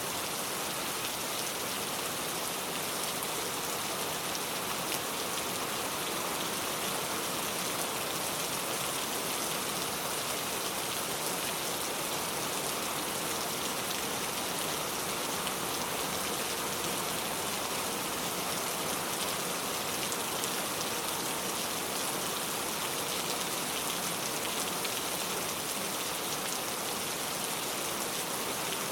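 Steady rain falling and pattering on surfaces, an even hiss with no break.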